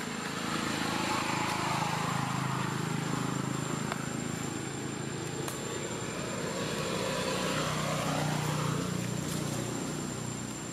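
A passing engine drones, swelling about a second in, easing off mid-way, then rising again in pitch and loudness before fading near the end.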